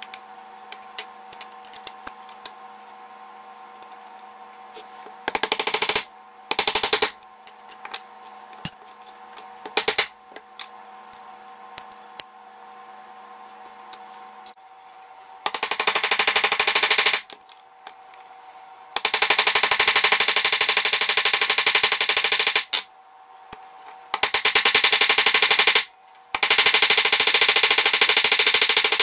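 Bursts of fast, evenly repeated mechanical clattering, each from under a second to about four seconds long, growing longer and more frequent after the middle, over a steady faint hum.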